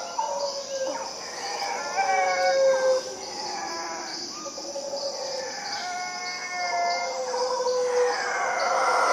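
Mantled howler monkeys howling in the forest canopy in long, drawn-out calls, which swell about two seconds in and again around six seconds in, over a steady high-pitched background chorus.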